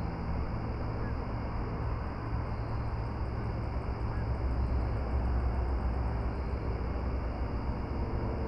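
Steady low mechanical drone with a held hum under an even hiss, and a faint run of quick regular high ticks through the middle.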